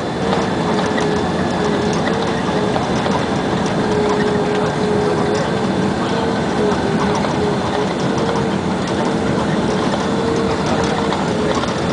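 Cabin noise of a Boeing 767 rolling out on the runway just after touchdown: a loud, steady rush of engine and runway noise with a slightly wavering hum and a constant light rattle of cabin fittings.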